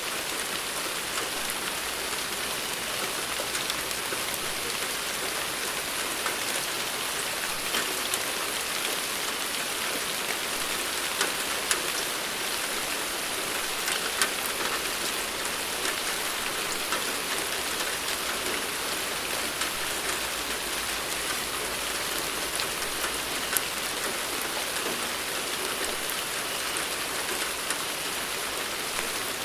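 Steady rain without thunder: an even hiss of rainfall with scattered sharper drop ticks.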